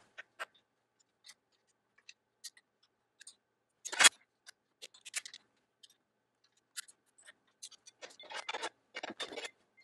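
Bolts being tightened on a metal standing-desk leg frame: scattered small clicks and scrapes of tool and metal parts, with one louder knock about four seconds in and a quick run of scraping clicks near the end.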